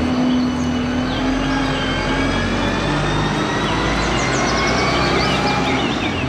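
A single-deck city bus's engine running as the bus turns and pulls away, a faint whine rising gradually over the low engine rumble, among street traffic.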